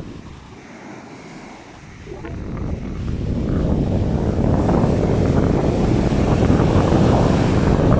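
Gusty sea wind buffeting the phone's microphone, swelling about two seconds in into a loud, steady rumble, over rough surf.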